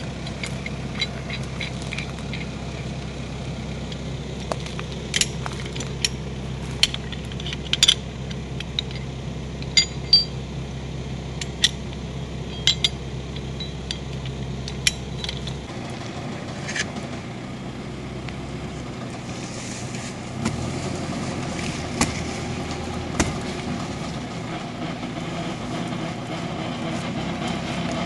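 Sharp metal clinks and scrapes of a winch shackle and hook being fitted to a rope around a log, over the steady idle of a Toyota Land Cruiser's diesel engine. About halfway through, the idle hum drops away, and a louder, even noise comes in about twenty seconds in.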